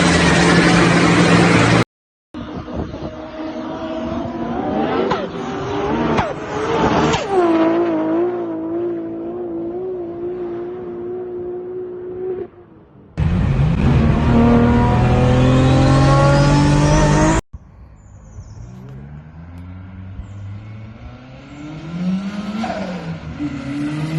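Several short clips, one after another, of turbocharged car engines revving up and dropping back, with the fluttering 'stututu' of the turbo's compressor surging as the throttle closes.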